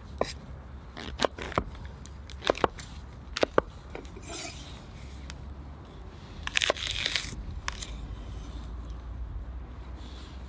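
Large knife chopping on a wooden cutting board: a run of sharp chops through king oyster mushroom pieces, then about six and a half seconds in, a crunch as the blade cuts through a red onion.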